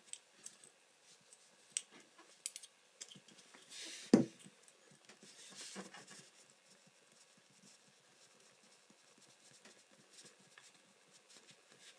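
Faint handling sounds: scattered small clicks and soft rustles as plumber's putty is pressed by hand onto the underside of a chrome tub drain flange, with one louder knock about four seconds in.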